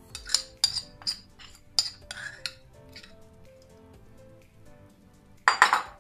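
A spoon clinking and scraping against a glass bowl and the metal wok as marinated meat is scraped into the pan. There is a quick run of sharp clinks in the first three seconds and a louder cluster near the end, over soft background music.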